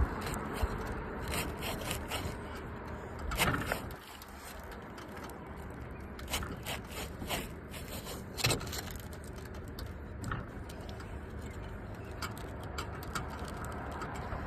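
Scraping, crackling and clicking of a tool worked under asphalt roof shingles to pry their sealed tabs loose, with louder scrapes about 3.5 and 8.5 seconds in. The shingles are stiff and resist being lifted. Faint steady background hum.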